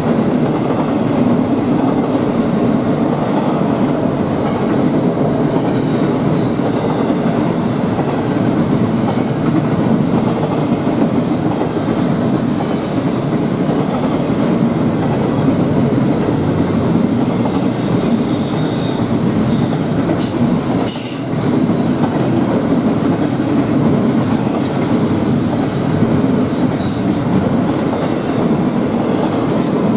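Double-stack intermodal freight train rolling past, a steady rumble of loaded well cars on the rails, with short high-pitched wheel squeals now and then.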